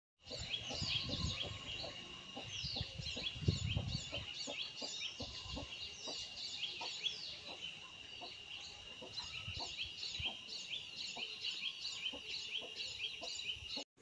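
Many small birds chirping rapidly and continuously: dense, short, falling chirps over a steady high-pitched whine, with a few low thumps in the first few seconds. The sound cuts off abruptly at the end.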